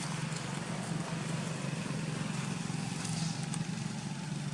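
A motor engine running steadily with a low drone, with a few faint ticks over it.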